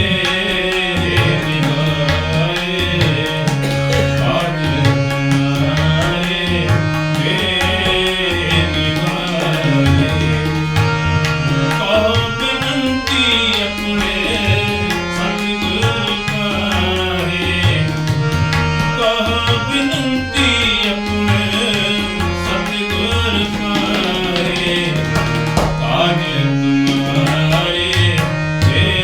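Sikh Gurbani kirtan music: tabla keeping a steady rhythm under sustained melodic tones.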